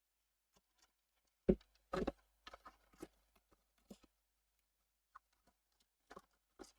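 Scattered knocks and light clatters of small parts and tools being moved and set down on a workbench, the loudest about a second and a half and two seconds in, with a few more near the end.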